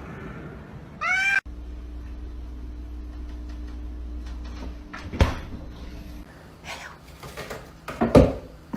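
A cat's short meow about a second in, cut off abruptly. Then a steady low hum with a few sharp knocks, the loudest near the end.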